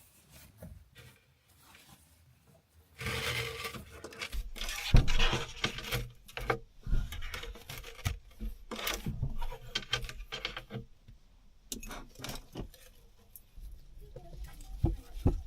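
Rustling, scraping and scattered knocks and clicks of things being handled in a small enclosed space. It starts about three seconds in and comes in irregular spurts.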